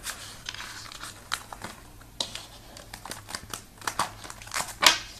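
Tarot cards being handled and shuffled by hand: irregular soft slaps, flicks and rustles of card stock, with a denser, louder run of slaps near the end.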